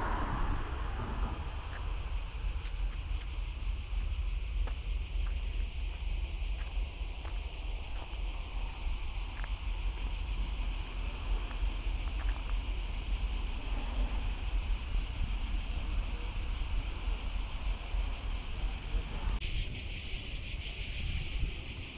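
A chorus of cicadas making a steady high-pitched buzz, which grows louder near the end, over a low rumble of wind on the microphone.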